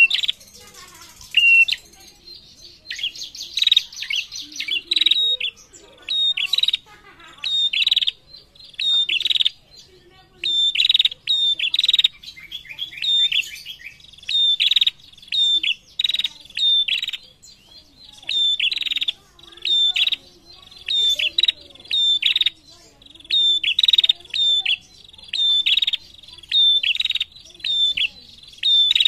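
Female prenjak (a small rufous-capped warbler) calling vigorously: a long run of sharp, high chirps, about one or two a second, with a few fast trills in the first few seconds.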